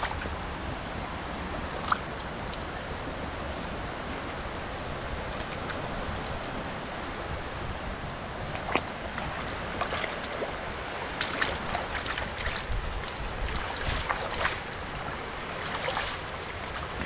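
Steady rush of water with scattered short splashes or knocks, the most of them in the second half.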